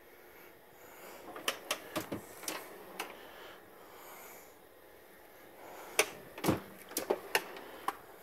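Metal drawers of a Mac Tools tool box being shut and pulled open, with tools knocking inside. The sound comes as two quick runs of sharp clicks and knocks, one about a second and a half in and a louder one about six seconds in.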